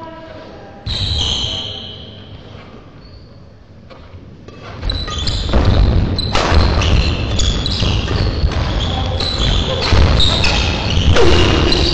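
Badminton rally on an indoor court: shoes squeaking and feet thudding on the hall floor, with sharp racket strikes on the shuttlecock, echoing in the sports hall. The play picks up and grows busier about five seconds in.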